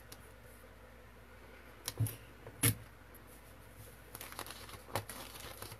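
Paper sheets and tape being handled and pressed flat on a tabletop: a few sharp taps around two and three seconds in, then crinkly paper rustling near the end.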